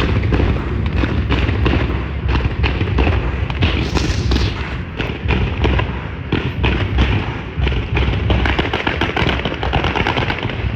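Fireworks going off in a dense barrage: rapid, overlapping bangs and crackles with a heavy low rumble beneath, without a break.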